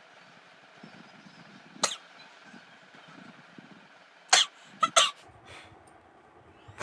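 A woman tickling her nose with a feather to provoke a sneeze, making short, sharp breathy bursts through her nose and throat: one about two seconds in, then a quick run of three a little after four seconds. The sneeze does not come.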